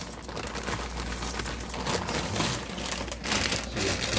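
Irregular crinkling and crackling, with a sharper crackle a little after three seconds.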